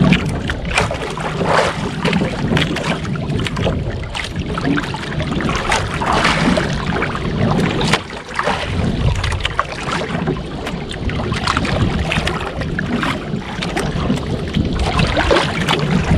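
Wind buffeting the microphone and choppy sea water slapping against the hull of a small fishing boat, with frequent short knocks and splashes over a steady noise.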